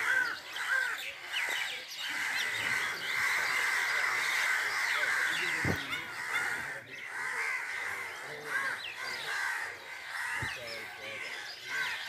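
A large flock of crows cawing, many calls overlapping into a continuous chorus.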